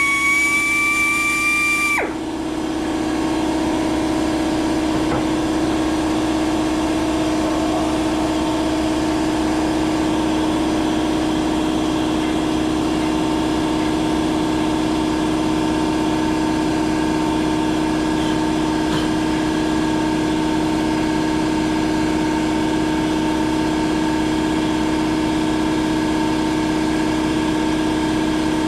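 Power drill running steadily as a Rescue Bit cuts out a broken cobalt drill bit lodged in a snapped grade 8 bolt. A high-pitched squeal cuts off suddenly about two seconds in, leaving the drill's steady hum.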